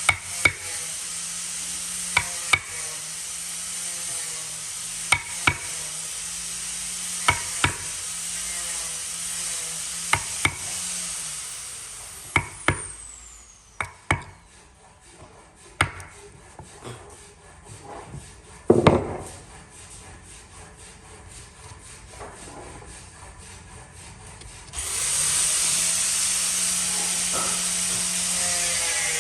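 A power tool running steadily, with paired sharp knocks on wood every two to three seconds. The tool stops about twelve seconds in, leaving scattered taps and clicks and one heavier knock. It starts running again near the end.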